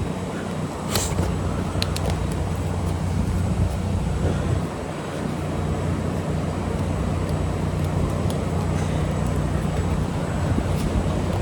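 Steady low mechanical drone, with a few light clicks about one and two seconds in.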